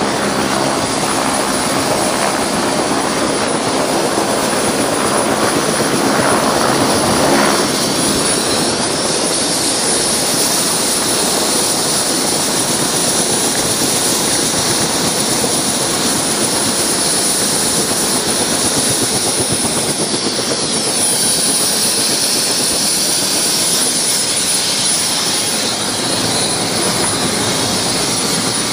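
Helicopter engine and rotor running steadily, heard from inside the cabin: a loud, even rush with a steady high whine over it.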